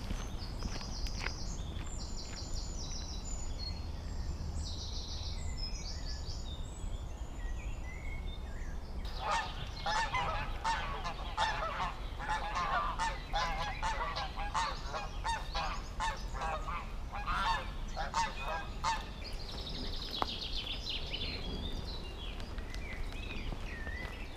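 Geese honking, many calls overlapping, starting about nine seconds in and stopping about ten seconds later. Small birds chirp high before and after, over a steady low rumble.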